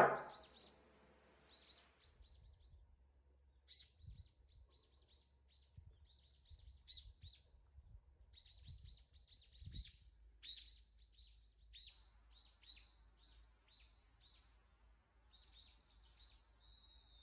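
Small birds chirping, a quick series of short, high chirps repeated over and over, faint. A brief music note dies away at the very start.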